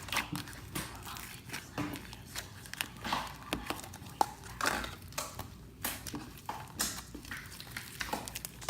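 Slime being squeezed and poked by hand, giving a string of irregular wet clicks and small pops.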